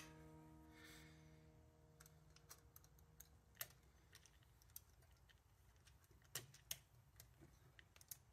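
Faint, scattered light metal clicks and ticks from a 1967 Triumph T100C clutch and primary chain being turned by hand to line up a clutch spring stud. Background guitar music fades out about a second in.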